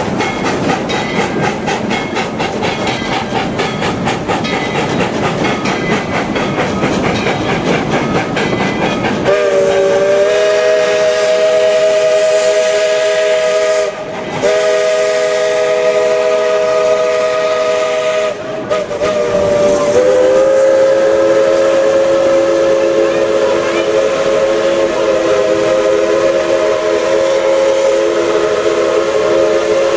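Steam train running with a regular beat, then its whistle sounding about nine seconds in: a chord of several tones, blown as two long blasts broken by short gaps, then held in a long steady blast.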